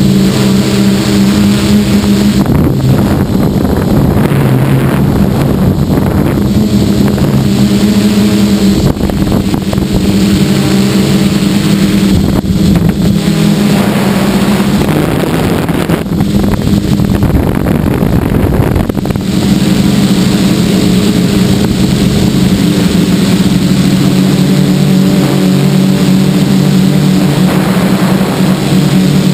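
Gaui 330X-S quadcopter's electric motors and propellers running with a steady hum, heard from the GoPro on board; the pitch shifts a few times, with a rushing noise of air over the microphone.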